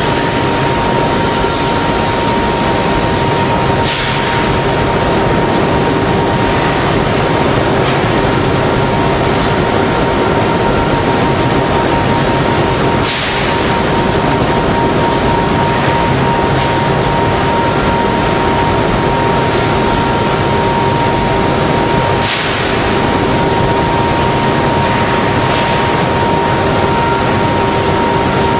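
Magnesium wire treatment of molten iron for ductile iron: a steady, loud rushing roar from the reacting ladle and treatment station, with a steady two-note machinery hum and a few faint cracks.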